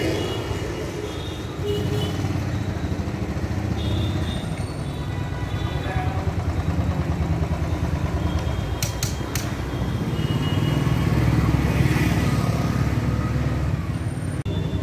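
Royal Enfield motorcycle's single-cylinder engine running at low speed with a steady low thump. Street traffic goes by around it.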